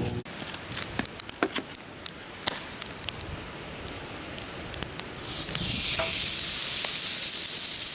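Wood fire crackling with scattered sharp pops, then about five seconds in, meat is laid on a thick 12 mm iron griddle plate and starts sizzling loudly and steadily: the plate is properly hot, a good searing sound.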